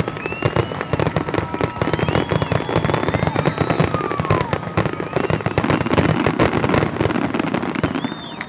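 Aerial fireworks going off in a rapid, continuous barrage of bangs and crackles, with a few whistling tones gliding up and down over it.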